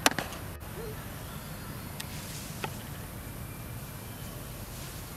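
Steady outdoor background noise, with one sharp click right at the start and two faint ticks later.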